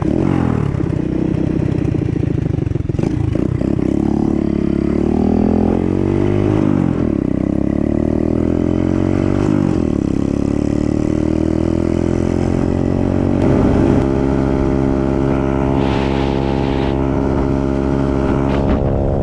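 A 125cc dirt bike's engine running under way. Its pitch rises and drops several times through the first half, then holds steady for the last third.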